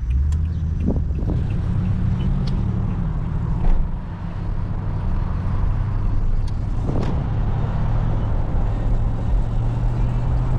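Steady low engine and road rumble inside the cab of a 2020 Toyota Tundra pickup on the move, with a few brief clicks and knocks, the loudest a little under four seconds in.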